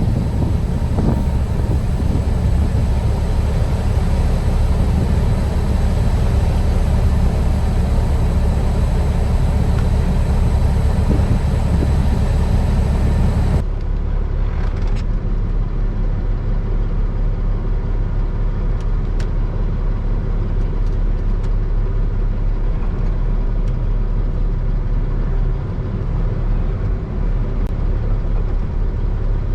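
Heavy truck's diesel engine running steadily, a low rumble with no clear revving. About halfway through the sound turns abruptly duller.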